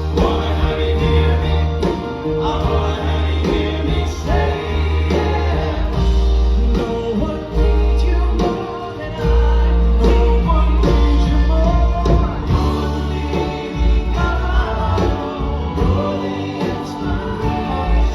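Live band playing a soft-rock ballad, with strong bass and drums under male group vocal harmonies.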